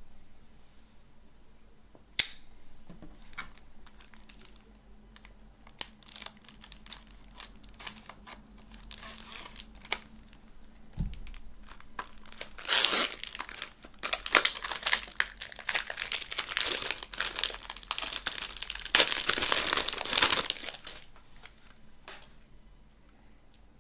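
Plastic shrink wrap being torn and crinkled off a CD jewel case. A sharp click comes about two seconds in, followed by scattered taps and rustles. Then a long stretch of dense crackling rises twice to its loudest and dies away near the end.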